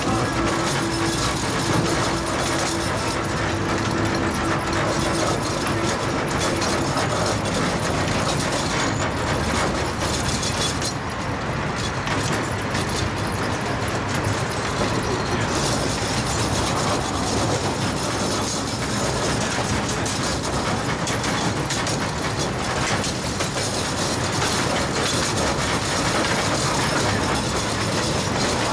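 15-inch gauge ride-on miniature train running along its track, heard from aboard a passenger car: a steady rumble and clatter of the cars on the rails, with a steady hum over the first several seconds.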